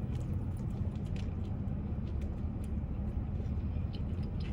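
Steady low rumble of a car's engine idling, heard from inside the cabin, with a few faint ticks over it.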